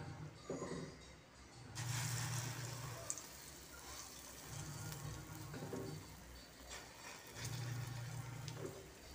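Hot oil sizzling as spoonfuls of corn arepita batter go into an aluminium pot, the sizzle picking up about two seconds in. A low hum comes and goes every few seconds underneath.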